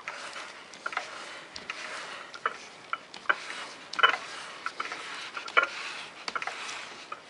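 A cloth shop rag scrubbed over a lap held in a lathe chuck, wiping off the oily lapping compound: a rustling rub with irregular sharp clicks and taps, the loudest about four and five and a half seconds in.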